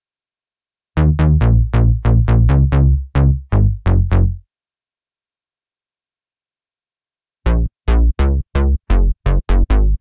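u-he Hive 2 software synthesizer playing bass presets: a quick run of about a dozen short, plucky low notes, a pause of about three seconds, then another rapid run of short bass notes starting about seven and a half seconds in.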